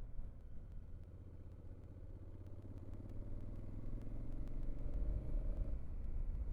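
A motor vehicle engine running, its pitch and loudness climbing steadily through the middle as it accelerates, then the rise breaks off near the end.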